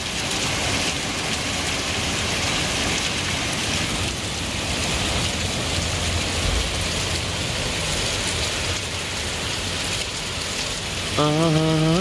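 Heavy rain falling steadily: a dense, even hiss of rain on surfaces. About a second before the end, a held, slightly wavering pitched tone, music or chanting, comes in over it.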